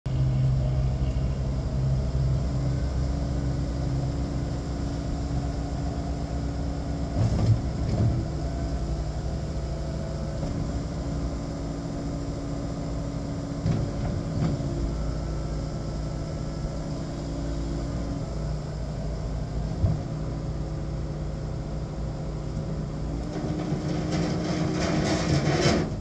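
Case TV380 compact track loader's four-cylinder turbo diesel running, its note shifting as the hydraulics raise, tilt and lower the bucket. A few clanks come about seven to eight seconds in, and the engine picks up near the end.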